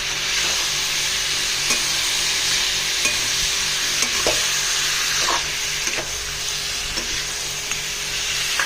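Pork pieces frying in mustard oil in a kadai, a steady sizzle, with a spatula stirring and scraping against the pan every second or so.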